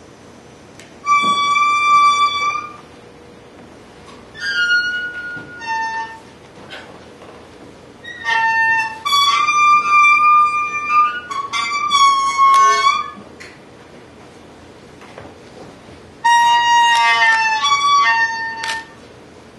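Improvised live music: high, sustained pitched notes in four separate phrases, each a second or two long and the third about five seconds, with pauses of quiet room noise between them.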